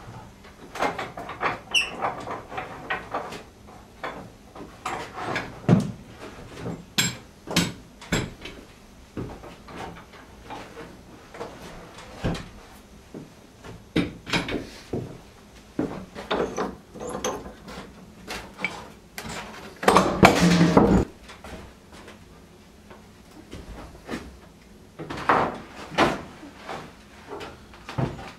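Wooden countertop boards and metal bar clamps being handled, giving a string of separate knocks, clicks and creaks, with one longer noisy stretch of about a second past the middle.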